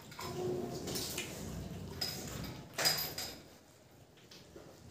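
Rice being mixed by hand on a metal plate, with light clicks and scrapes of the fingers against the plate. The sharpest click comes about three seconds in.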